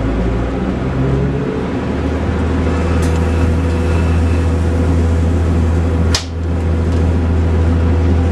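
Interior of a Class 175 Coradia diesel multiple unit, with its underfloor Cummins diesel engine running as a steady low drone under a faint hum. A sharp click sounds about six seconds in.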